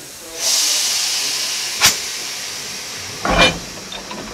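A sudden loud hiss from the train starts about half a second in and fades slowly over the next few seconds. A sharp click comes near the middle and a heavier clunk near the end.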